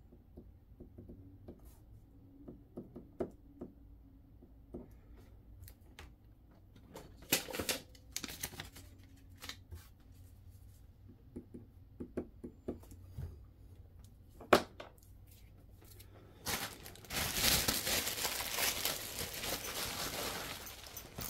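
Clear plastic packaging bag being opened, with light rustling and a few sharp clicks and taps. About three-quarters of the way in, it turns to loud, continuous crinkling of the plastic as it is pulled off and crumpled.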